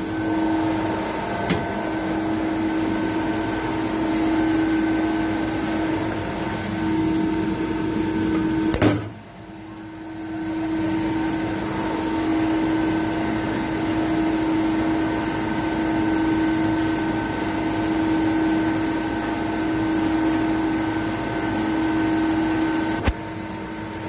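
Steady machine hum with a strong low tone and fainter higher tones, from running cold-room refrigeration equipment. A sharp click about nine seconds in, after which the hum dips briefly and comes back, and another click near the end.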